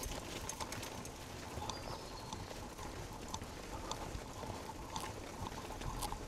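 Bicycle rolling over cobblestones: the tyres bump and the bike rattles in a steady run of irregular light clicks and knocks.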